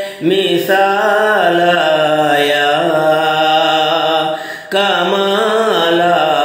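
A man's voice singing an Urdu naat in long, ornamented, chant-like notes, with a short breath break near the start and another about four and a half seconds in.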